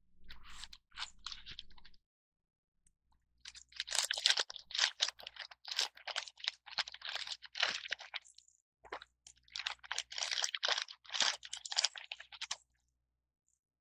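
Clear plastic bag crinkling as hands pull a small figure out of it: a short faint rustle, then two long bouts of irregular crinkling with a brief break between them.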